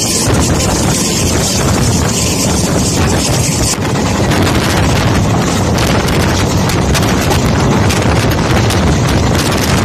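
Wind buffeting the microphone at an open carriage window over the steady rumble of a moving train. The hiss changes abruptly about four seconds in.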